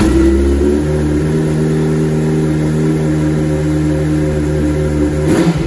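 2002 Yamaha R1's inline-four engine idling steadily just after a cold start, at a raised idle of about 1,000 to 2,500 rpm. The engine note wavers briefly near the end.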